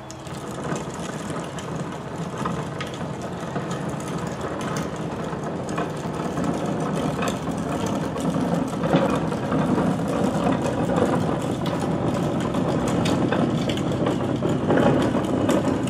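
A heavy vehicle's engine running out of view, getting steadily louder as it comes closer, with scattered knocks and rattles.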